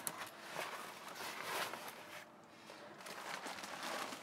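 Faint rustling and scraping of canvas as the fabric window flap of a pop-up roof tent is pulled open, with a few soft clicks.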